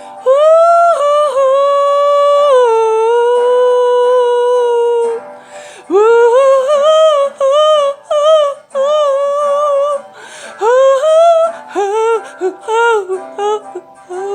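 A solo voice singing wordless notes over a soft acoustic guitar: one long held note that steps down partway through, then a run of short notes, each scooping up into pitch.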